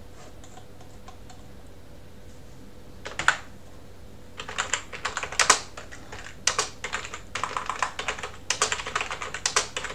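Computer keyboard typing: a short cluster of keystrokes about three seconds in, then rapid, uneven keystrokes from about four seconds on.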